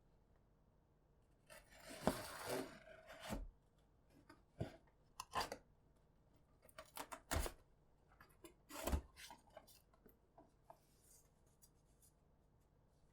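Hands handling keyboard kit parts: a scraping rustle about two seconds in, then a scatter of sharp knocks and small clicks as pieces are picked up and set down.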